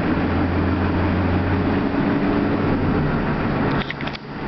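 Steady road and engine noise heard from inside a moving vehicle, with a low drone under it. Near the end it drops out briefly with a few clicks, then picks up again.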